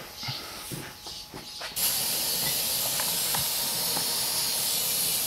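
Compressed air hissing from an air line into a large farm implement tire being inflated to seat its bead. It starts abruptly about two seconds in and holds steady, after a few light knocks.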